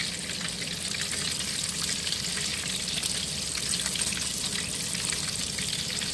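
Catfish deep-frying in hot peanut oil in a deep fryer: a steady sizzle full of fine crackling.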